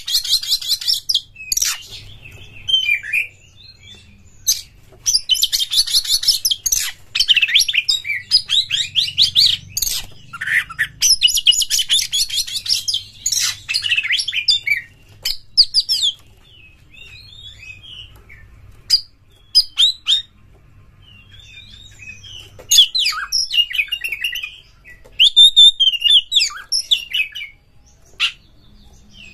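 Oriental magpie-robin singing: loud phrases of fast chattering trills and sharp whistled notes, packed with mimicked fills, broken by short pauses.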